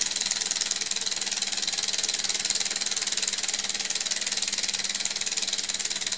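Small 3D-printed vertical-cylinder Stirling engine running on residual heat after the flame is taken away: a fast, steady mechanical rattle from its pistons and crank, with a steady low hum underneath.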